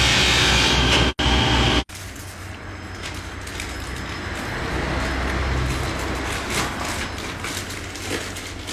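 Steady mechanical running noise, loud for about two seconds and cutting off abruptly, then quieter over a low hum with a few faint ticks near the end.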